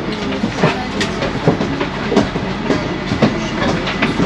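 Inside a moving double-decker bus: steady running and road noise, with irregular rattling knocks about every half second.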